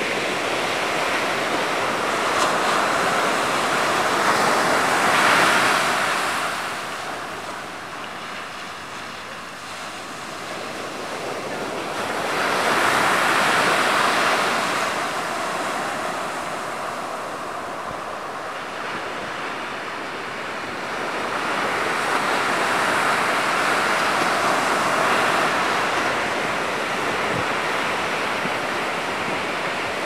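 Sea surf: waves washing in and out, the noise swelling three times, with wind blowing across the microphone.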